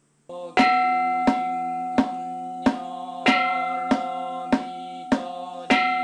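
Buddhist temple percussion: a wooden fish (mokugyo) struck steadily with a padded beater, about one and a half beats a second. A bowl bell is struck three times, about half a second in, about three seconds in and near the end, and its ringing tone hangs over the beats.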